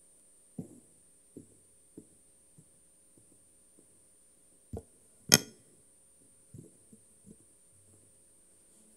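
Footsteps on a hard floor as a man walks up to a lectern: a series of soft thuds, then a single sharp knock about five seconds in, the loudest sound, followed by a few more steps and shuffles. A faint steady hum runs underneath.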